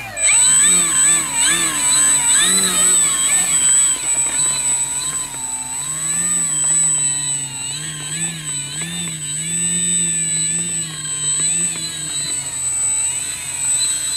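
Brushless electric motor of an XFly Tasman RC plane driving its two-blade propeller while the plane taxis, a whine whose pitch rises and falls as the throttle is worked. A thin, steady, very high tone runs underneath.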